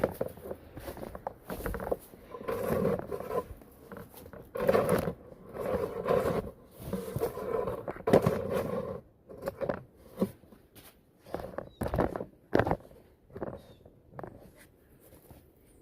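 Rustling and scraping of household junk and debris being handled or walked over, with scattered knocks and clicks that grow sparser in the second half.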